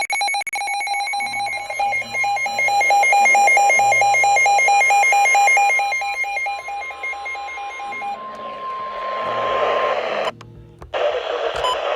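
Emergency alert on a radio: a rapid electronic alarm beeping over a steady high alert tone, the NOAA Weather Radio 1050 Hz warning tone. The beeping stops about eight seconds in, the tone holds about two seconds longer, and after a brief dropout the radio hiss comes up.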